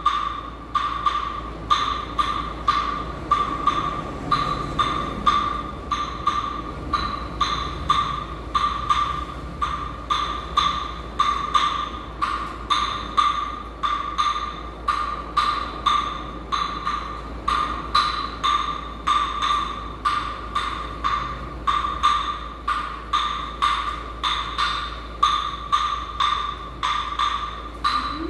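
Hand percussion played live in a steady rhythm: about two strong strokes a second with lighter strokes between. Each stroke is a sharp, wood-block-like click that rings briefly at one clear pitch.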